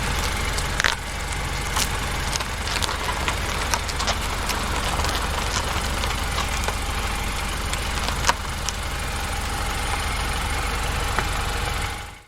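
Car engine running with a steady low rumble, a faint steady whine and scattered small clicks and ticks. It fades out near the end.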